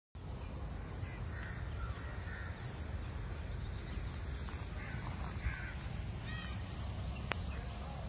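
Crows cawing a few times over a steady low rumble.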